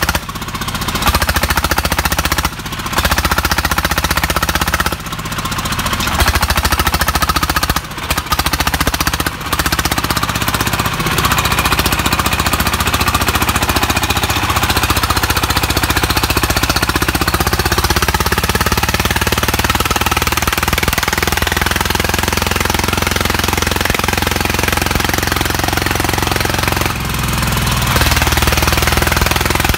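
Single-cylinder diesel engine of a công nông two-axle farm tractor-truck running hard with a rapid pounding beat. The sound dips briefly several times in the first ten seconds.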